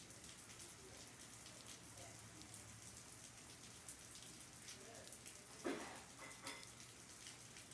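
Faint steady rain outside, with many single drops ticking, and one brief louder knock about three-quarters of the way through.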